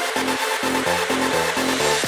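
Electronic dance music with a pulsing bass line of short repeated notes.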